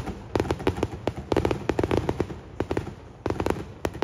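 Aerial fireworks bursting overhead, with clusters of rapid crackling pops coming in several waves over a low rumble.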